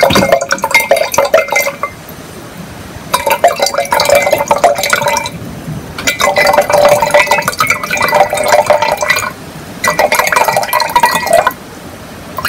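Rice vinegar poured into a glass mason jar in four short pours with brief pauses between them. The splashing liquid carries a steady ringing tone from the jar.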